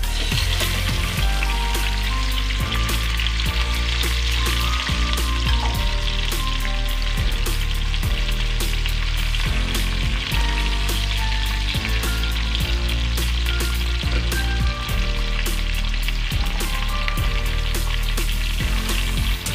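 Dried fish frying in hot oil in a pan: a steady sizzle that starts as the pieces go in, with a spatula turning them now and then.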